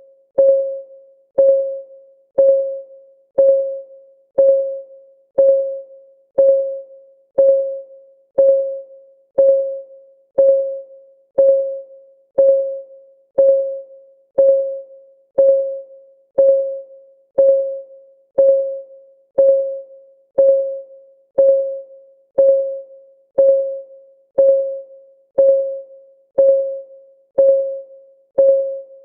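Countdown timer ticking: a short, pitched electronic tick once a second, each one dying away quickly, in an even, steady rhythm.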